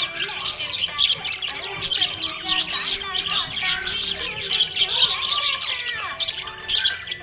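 Several small pet parrots chirping and squawking in a dense, unbroken chatter of short, high calls.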